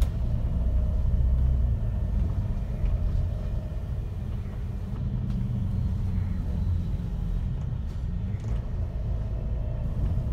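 Interior ride noise of a MAN Lion's City A39 articulated city bus under way: a steady low rumble of the running bus, easing slightly midway.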